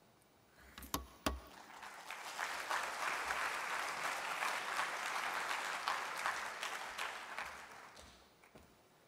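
Audience applause in a large hall that builds up, holds for several seconds and fades out. It is preceded about a second in by two sharp knocks.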